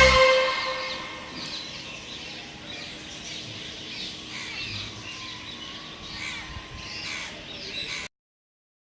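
Birds chirping and calling repeatedly over a low background hiss, after a music track ends at the very start; the sound cuts off abruptly about 8 seconds in.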